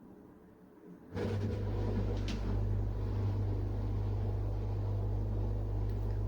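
A steady low mechanical hum that comes on suddenly about a second in and holds, with one short click shortly after it starts.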